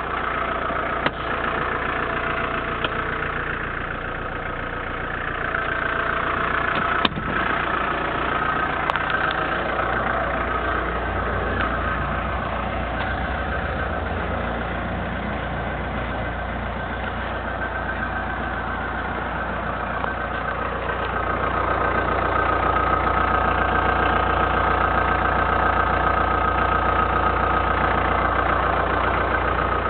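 Ford Escort Mk3's 1.6-litre four-cylinder diesel engine idling steadily. It grows somewhat louder about two-thirds of the way through.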